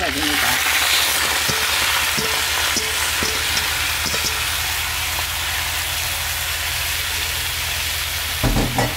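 Shredded Korean radish dropped into hot perilla oil in a nonstick pan: a sudden loud sizzle, strongest in the first couple of seconds, that settles into a steady frying hiss.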